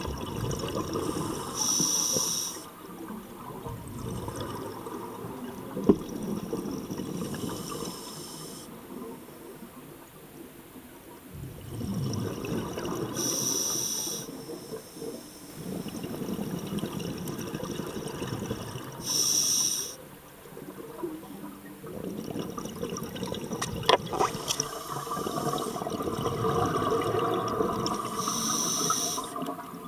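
Scuba diver breathing through a regulator underwater: a short hissing inhale through the demand valve about every five to six seconds, with bubbling exhales in between. A single sharp click about two-thirds through.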